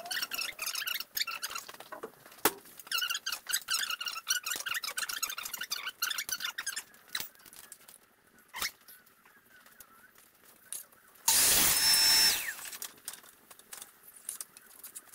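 High-pitched, sped-up voice chattering in the first half. About eleven seconds in, a compound mitre saw makes one short cut through a timber board, its motor whine falling away as the blade spins down.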